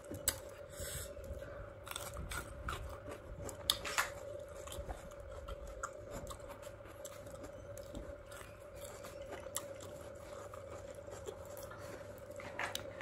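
A person chewing and eating with his fingers: soft wet mouth clicks and smacks, with fingers picking at chilli-crusted grilled fish on a metal plate. A faint steady hum runs underneath.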